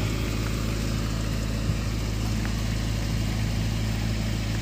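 Generator set engine running steadily at idle, a constant low hum with no change in speed.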